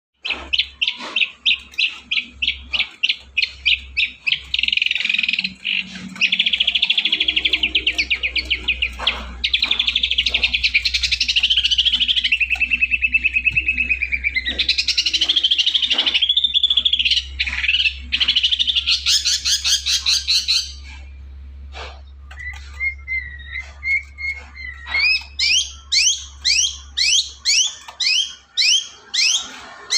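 Long-tailed shrike (cendet) singing a loud, chattering song of rapid-fire repeated notes and trills, changing phrase every few seconds. Near the end it gives a run of upward-sweeping notes at about two a second.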